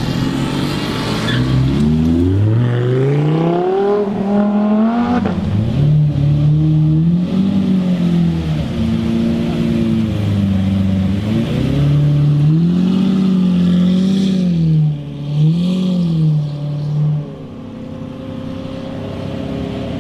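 Lamborghini V12 supercars accelerating and revving. The engine note climbs for a few seconds and drops about five seconds in, as at a gear change. It then rises and falls in several short throttle blips toward the end.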